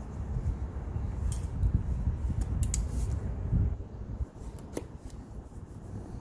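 Cardboard product box being handled and worked open, with several sharp clicks and snips over a low rubbing rumble that drops away about four seconds in.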